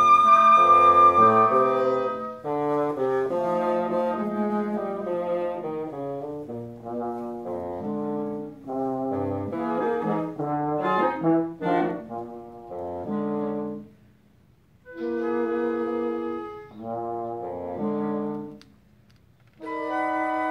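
A woodwind quintet with flute, clarinet, French horn and bassoon plays live. A high held note at the start leads into a stretch of moving chords. Near the end the music breaks into separate sustained chords with short pauses between them.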